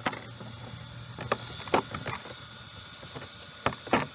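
Handling noise: about six sharp clicks and knocks, irregularly spaced, over a steady low hum.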